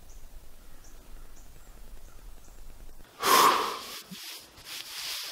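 Faint woodland background, then about three seconds in a man's sudden loud, breathy exhale into his hands, a frustrated sigh, followed by softer breathing.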